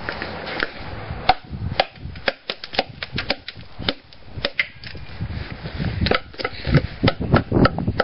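Hammer knocking the small pieces of wood out from between saw cuts in a wooden board: an uneven series of sharp wooden knocks, busiest about halfway through and again near the end.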